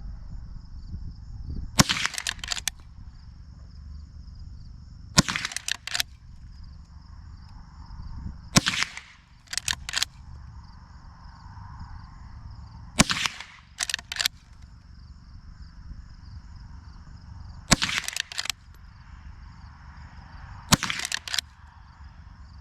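Henry Golden Boy .22 Long Rifle lever-action rifle fired six times, a shot every three to five seconds. Each shot is followed by quicker, quieter clacks of the lever being worked to chamber the next round.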